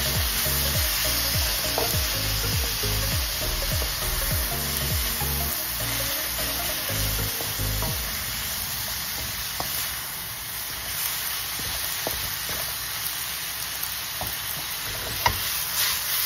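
Noodles and vegetables sizzling in a hot wok over a high gas flame while a wooden spatula stirs and tosses them. A few sharp knocks of the spatula against the wok come in the second half, the sharpest near the end.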